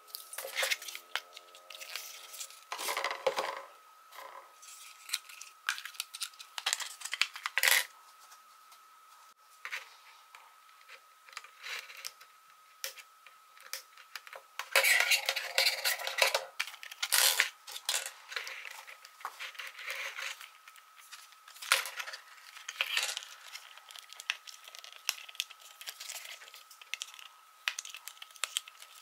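Unboxing handling noises: paper rustling, scissors snipping packaging off a plastic smart cube, and scattered clicks and taps of plastic and cardboard. The cutting is loudest about halfway through, and a faint steady high whine runs underneath.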